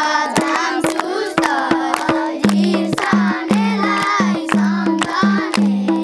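A group of children singing a Nepali folk song together over rapid hand-clapping. About two and a half seconds in, a low pitched beat from a madal drum joins.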